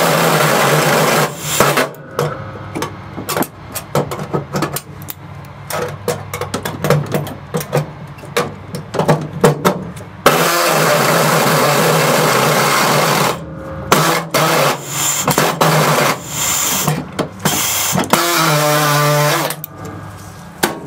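Pneumatic reciprocating air saw cutting through the sheet-metal floor pan of a 1964 Ford F100, with the thin panel rattling and vibrating. The saw runs in short bursts and stutters, with one steady run of about three seconds partway through.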